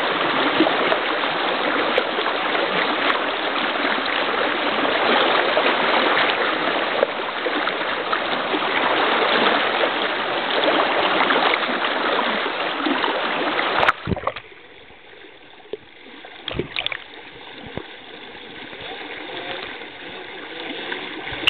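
Spring-fed stream rushing over a shallow riffle close to the microphone, a loud, steady rush of water. About two-thirds through it drops suddenly to a much quieter rush, with a few knocks.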